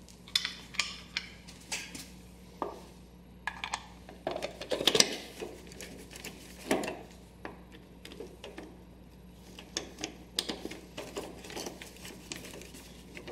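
Scattered clicks, taps and rattles of hard plastic as a red tail-light lens is handled and pressed onto a compact tractor's light housing, loudest about four to five seconds in. Near the end a screwdriver works the lens screws, with more light clicks.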